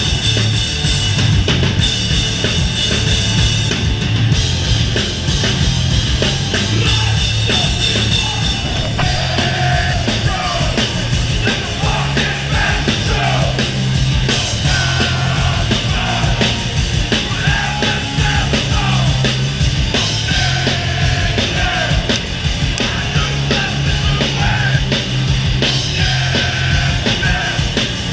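New York hardcore band playing live at full volume: distorted guitars, bass and pounding drums, with shouted vocals coming in about a third of the way through.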